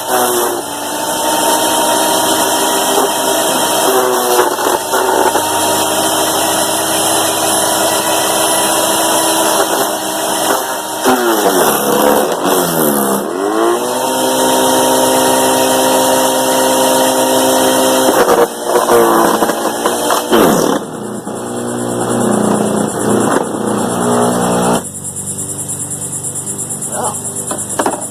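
SunJoe 15-amp electric wood chipper's motor running and chewing through sticks about an inch thick, its whine sagging in pitch each time a branch loads the blade, most deeply about twelve seconds in. Near the end the motor stops after a stick jams it, leaving crickets chirping.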